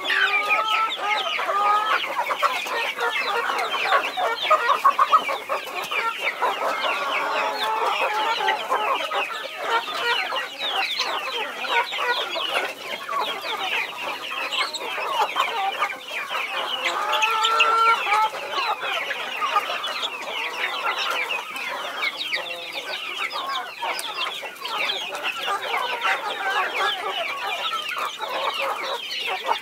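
A flock of chicks peeping constantly as they feed, many short high chirps overlapping. A hen clucks lower now and then, most clearly near the start and about two-thirds of the way through.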